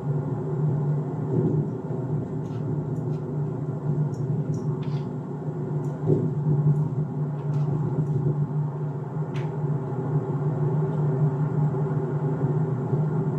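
Steady low rumble of a car driving at cruising speed, heard from inside the cabin, with a few faint ticks through the middle.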